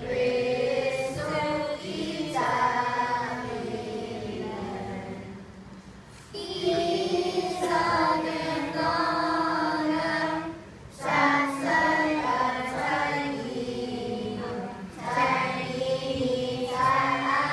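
Children's choir singing in sung phrases, with brief pauses about six and eleven seconds in.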